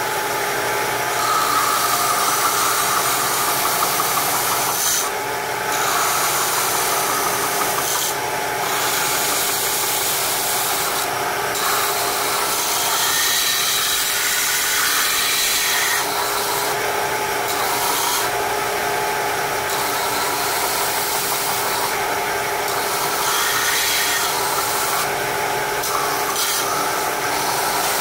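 Belt sander running, with a small wooden cage feeder being ground against the belt: a steady motor hum under a rasping hiss. Several times the hiss briefly drops away as the piece comes off the belt.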